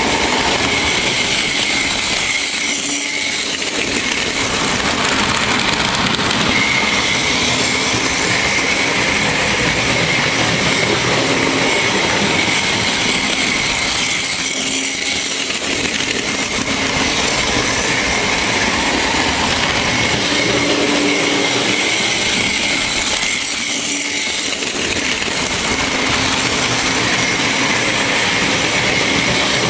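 Märklin model train running on the layout's track: a steady electric motor whine with wheel and rail noise, dipping briefly three times.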